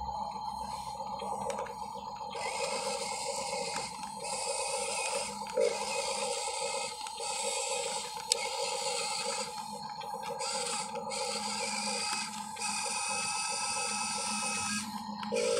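Huina 1573 RC dump truck's small electric motors and gears whirring in stop-start runs as the tipper bed lowers and the truck drives off, with a sharp click about eight seconds in.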